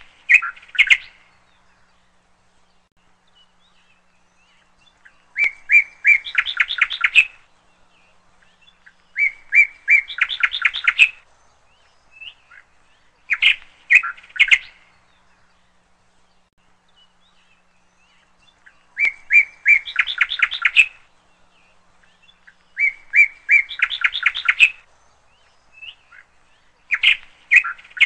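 Bird song: phrases of quick chirping notes, each lasting one to two seconds, repeating every few seconds with short pauses between.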